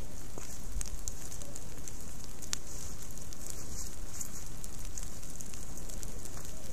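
Low ground fire of a controlled burn creeping through dry leaf litter, crackling steadily with scattered sharp pops.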